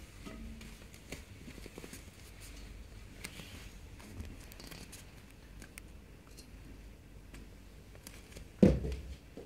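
Faint scattered clicks and rustling, then one sudden loud thump near the end that dies away within about half a second.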